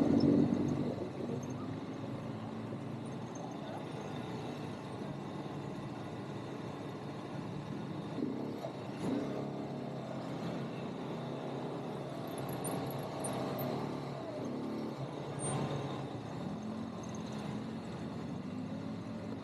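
ATV engine running during an off-road ride, its note rising and falling a few times as the throttle changes.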